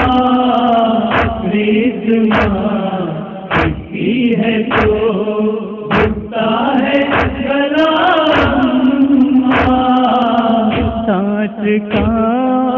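A noha, a Shia mourning lament: several male voices chant a sustained, wailing line over a steady drone, with a heavy thump about every 1.2 seconds, the matam beat of chest-beating. Near the end a single male voice enters with quick, wavering ornaments.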